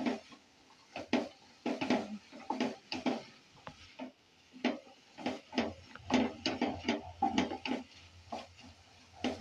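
Wooden spatula stirring diced brinjal and vegetables in an aluminium pot, with irregular scrapes and knocks of wood against the metal, several a second.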